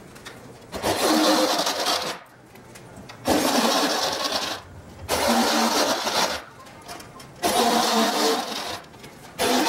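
Cordless drill with a step drill bit cutting through a thin aluminum wing rib, run in short bursts of about a second each with pauses between: four bursts, and a fifth starting at the end. It is enlarging a hole in the rib for a wiring grommet.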